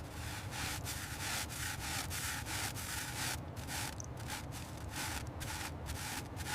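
Rhythmic back-and-forth rubbing strokes on a surface, several a second, with an abrasive, hissing edge.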